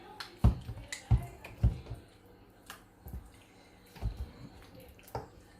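Chicken pieces being mixed into a wet yogurt-and-spice marinade in a bowl: irregular wet slaps and squelches, about six in all, with gaps of up to a second.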